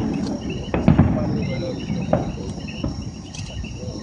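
Fireworks going off in the distance: a handful of separate bangs and pops, over a steady high chirring of night insects.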